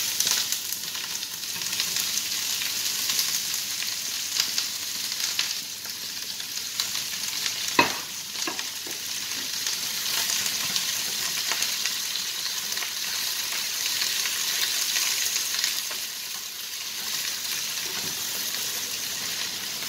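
Sliced onions sizzling as they saute in a hot frying pan, stirred with a spatula. About eight seconds in there is a single sharp knock.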